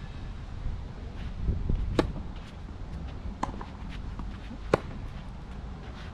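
Sharp crack of a tennis racket striking the ball on a serve, about five seconds in, after two softer knocks of the ball being bounced on the clay court.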